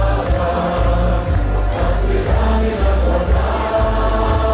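Choral music with held sung notes over a heavy low bass.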